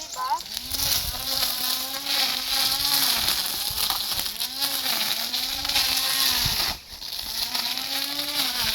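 Lawn mower's small engine running under load while cutting, its pitch sagging and recovering every second or two, with a hiss of cutting over it. It drops off briefly about seven seconds in, then picks up again.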